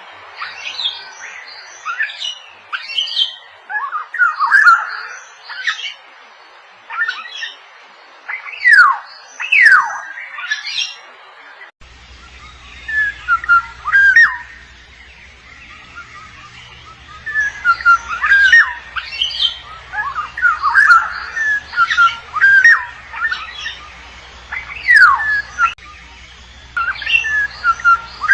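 Oriole calls: harsh squawks and sharply falling slurred notes, repeated in bursts of a few seconds with short pauses between them.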